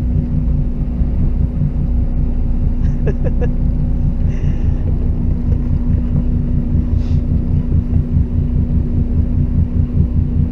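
Fishing boat's engine running steadily: a low rumble with a constant hum.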